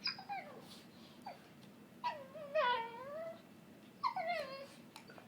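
A dog's high, wavering whining calls made during play, gremlin-like, with the pitch sliding down and wobbling. There is a short burst at the start, a longer drawn-out call about two to three seconds in, and another about four seconds in.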